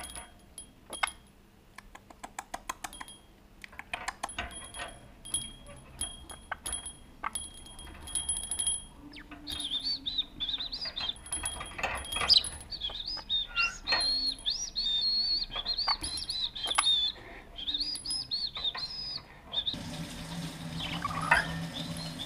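A small cage bell jingles repeatedly among light taps and clicks as a budgerigar plays with it. About nine seconds in, the budgerigar breaks into warbling chatter that runs for about ten seconds. A low hum starts near the end.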